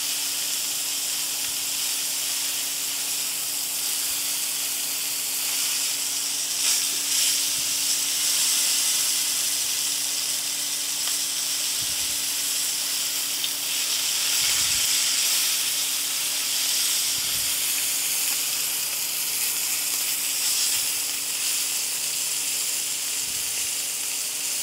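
Venison steaks searing in hot oil in a frying pan: a steady sizzle, swelling a little at times, as the steaks are turned and moved with metal tongs.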